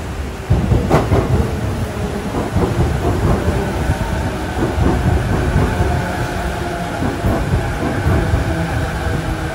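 Keihin-Tohoku line E233-series electric train pulling into the platform: its wheels rumble and knock over the rails, and a steady whine joins in about four seconds in as the cars slide past.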